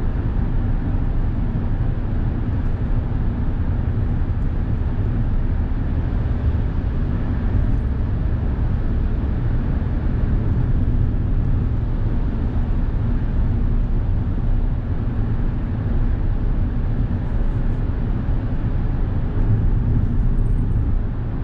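Steady road and engine noise inside a Suzuki Hustler kei car cruising at expressway speed through a road tunnel, a constant low drone without changes.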